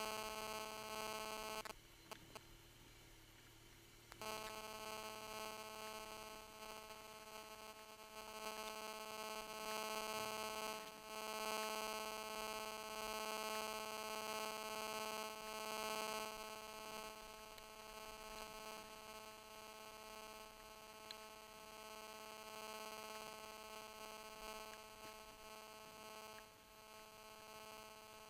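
Steady electrical buzz at one fixed pitch, dropping out for about two seconds near the start.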